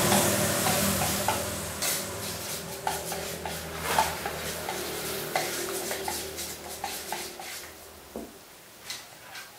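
A metal spoon stirring a thick flour batter in a stainless steel pot, scraping and clinking against the pot's side at an uneven pace of about one to two knocks a second.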